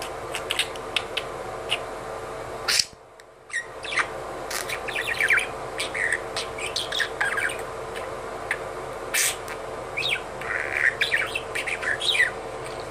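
Budgerigar chattering: a quick, rambling run of soft chirps, clicks and warbles, the budgie's mumbled attempt at talking, with a short pause about three seconds in.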